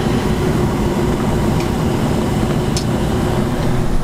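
Mr. Heater Big Maxx 80,000 BTU natural gas unit heater running just after lighting: a steady hum from its fan and power-vent motor.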